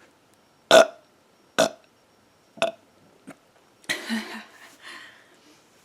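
A woman burping: three short burps about a second apart, a faint fourth, then a longer, noisier sound about four seconds in that fades away.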